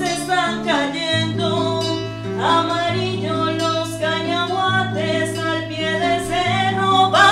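A woman singing a Spanish-language song with strummed acoustic guitar accompaniment, the guitar's bass notes changing every second or so under her sliding, held vocal lines.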